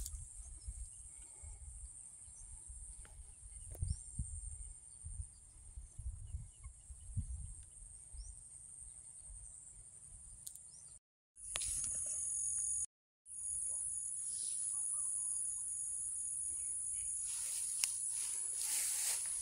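Insects, likely crickets, buzzing as a steady high-pitched drone over a low rumble of wind on the microphone. The sound drops out completely twice for a moment around the middle, and near the end there is rustling as someone walks through tall grass.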